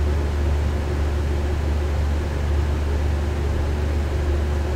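A steady low hum with a faint hiss above it, unchanging throughout.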